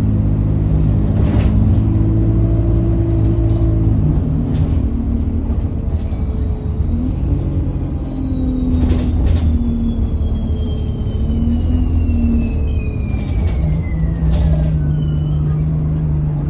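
Alexander Dennis Enviro200 single-deck bus heard on board: the diesel engine runs with a high turbocharger whistle that rises about a second in, then slowly falls in pitch over the following ten seconds or so as it spools down. A few short bursts of noise cut across it.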